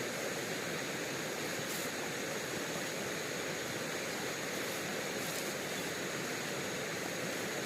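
Steady rushing of river water, even in level throughout.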